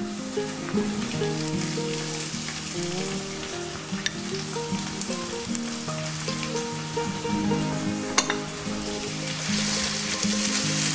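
Diced onion sizzling in olive oil in a stainless-steel frying pan, with a wooden spatula stirring it near the end, when the sizzle gets louder. Soft background music with a stepping melody plays underneath.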